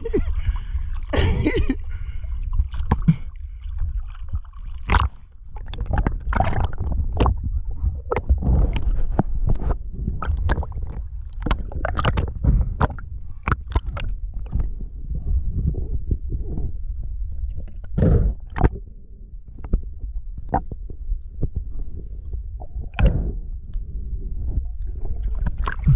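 Water sloshing and gurgling around a camera moving between the surface and underwater during a freedive, over a constant low rumble, with many short clicks and knocks scattered through.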